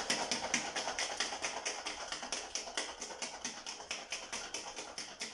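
Ice cubes rattling and knocking inside a metal-lined thermos, shaken hard as a makeshift cocktail shaker to mix and chill a margarita. The shaking is steady, about six knocks a second.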